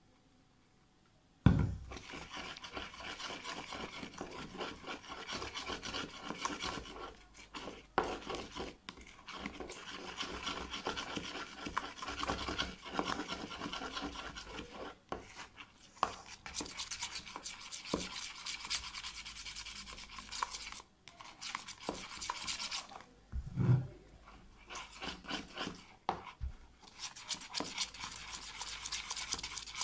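A spoon stirring and scraping slime mixture in a small plastic tub: a continuous run of rapid scratchy strokes. It starts with a sharp knock, and a second low knock comes a little over twenty seconds in.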